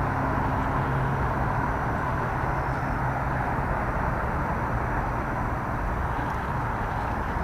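Steady low rushing background noise with no distinct events, even throughout.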